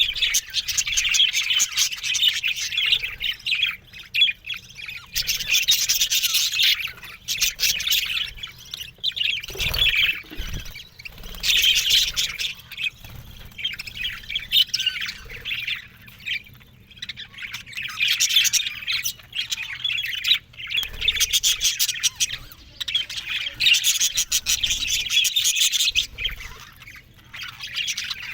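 Budgerigars chattering and warbling: fast, scratchy, squawky calls in bouts of a few seconds, with short lulls between them.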